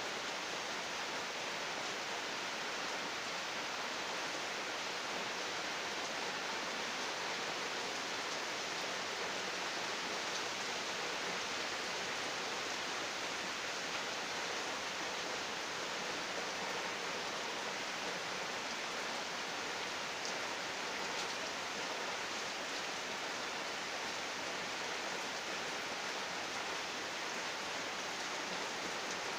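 Steady rain falling outside, an even hiss without breaks.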